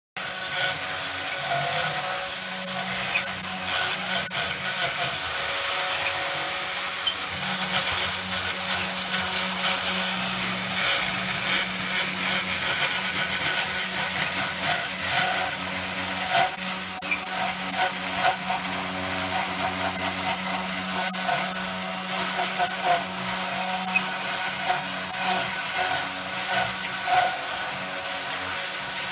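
Sainsmart Genmitsu 3018 desktop CNC router running: the spindle motor hums steadily while the bit scrapes through a pine board, with brief louder bits of cutting now and then.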